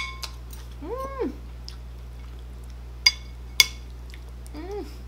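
Two short rising-and-falling 'mm' hums of enjoyment from a person chewing a mouthful of rice. Between them, metal chopsticks click twice against a dish.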